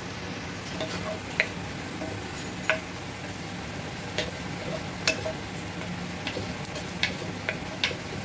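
Chopped garlic frying in olive oil in a nonstick pot, a steady low sizzle, being browned to golden. A wooden spoon stirs it, giving sharp ticks against the pot about every second, some seven in all.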